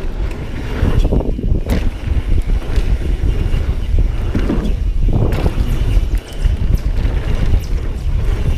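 Wind rushing over the helmet-camera microphone as a Pivot Firebird downhill mountain bike runs fast over rough trail, with the bike's frame and drivetrain rattling and knocking over rocks and bumps.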